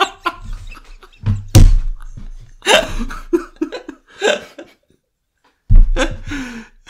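Hosts laughing in loud bursts close on the microphones, with a thump at some of the onsets. The sound drops to dead silence for about a second before the laughter picks up again.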